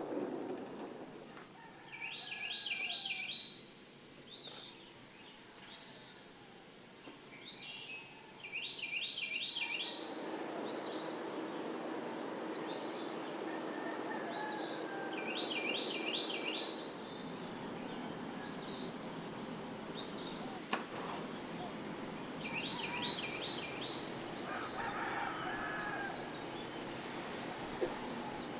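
Outdoor birdsong: a short, rapidly warbling call repeated about every six or seven seconds, with scattered shorter chirps. A steady background hiss comes up about ten seconds in.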